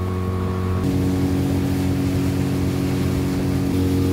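A boat motor running steadily under way, with an even engine tone. The tone shifts abruptly about a second in and again near the end.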